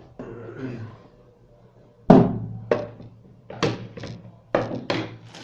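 Several sharp knocks and thunks of hard objects being handled and set down on a tabletop, the first about two seconds in the loudest.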